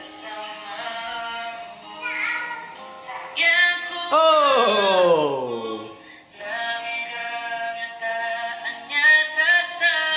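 Young male voices singing a slow pop ballad to an acoustic guitar. About four seconds in, the voice slides steeply down in pitch.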